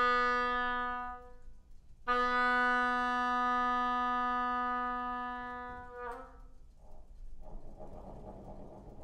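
Oboe holding a single low note, played twice. The first is about a second and a half long. After a short break the second is held for about four seconds and cuts off sharply about six seconds in. A faint, soft noisy sound follows near the end.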